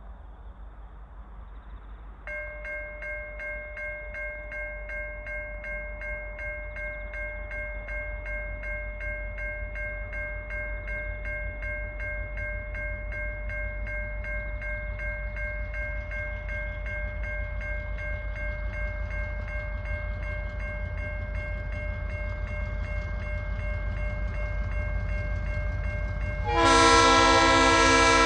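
A level crossing warning bell starts ringing about two seconds in, a steady pulsing tone, while a diesel freight locomotive's low rumble slowly grows louder as it approaches. Near the end the locomotive's horn blasts loudly, a chord of several tones.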